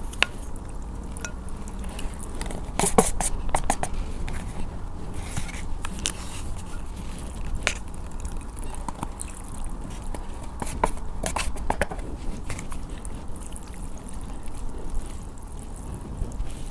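Close-miked eating of hot and sour sweet potato noodles: wet chewing and slurping, with scattered sharp clicks and smacks that bunch together a few times.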